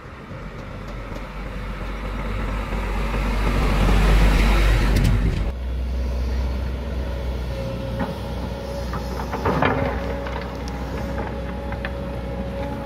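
A diesel dump truck approaches, its engine and tyre noise swelling to a peak about four seconds in, then breaks off abruptly. After that a hydraulic excavator works with its diesel engine running steadily and a faint steady hum, and a few sharp knocks and scrapes from the bucket digging into earth and rocks come about four seconds later.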